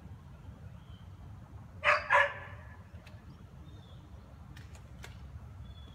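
A dog barking twice, loudly, about two seconds in, followed by a few faint clicks.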